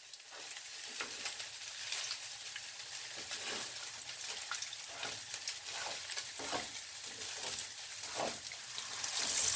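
Cassava fritters frying in hot oil in a non-stick pan: a steady sizzle with scattered small crackles and pops. Near the end the sizzle grows louder as another portion of batter goes into the oil.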